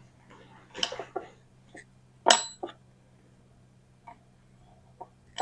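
A few light knocks, then a single sharp metallic clang that rings on briefly about two seconds in, and another ringing clang at the very end, over a low steady hum.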